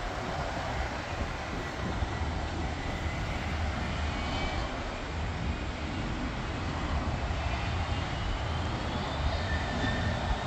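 Business jet engines running at a distance: a steady rush with a faint high whine over it.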